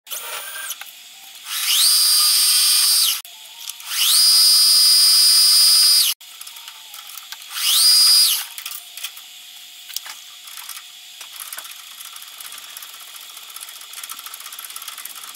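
Small CNC milling machine spindle drilling a hole in a steel connecting rod: three times the spindle spins up with a rising whine, runs at a steady high-pitched whine and stops abruptly. After about eight seconds only a much quieter steady hum with faint ticks remains.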